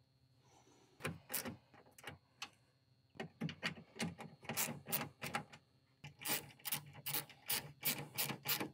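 A replacement car speaker being pressed and fitted into a pickup truck's door: a run of irregular clicks, taps and rubbing that starts about a second in and grows busier from about three seconds in.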